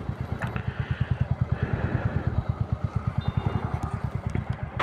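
Royal Enfield Meteor 350's single-cylinder engine idling, a quick, even beat of low exhaust pulses.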